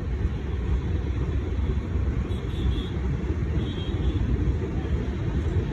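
Passenger train running along a station platform, heard from its open coach door: a steady low rumble of wheels on rails, with two faint, brief high squeals near the middle.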